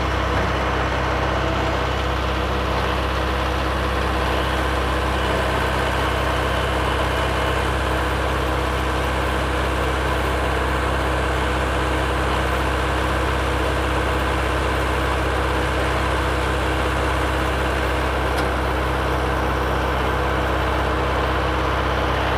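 Mahindra 4540 compact tractor's four-cylinder diesel engine idling steadily.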